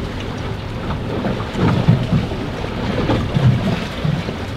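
Gusty wind buffeting the microphone over choppy sea water moving against a small boat, with stronger gusts about two seconds in and again near three and a half seconds.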